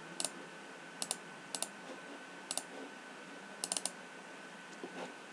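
Computer mouse clicking: about half a dozen sharp clicks spread through, most in quick pairs like double-clicks, over a faint steady whine.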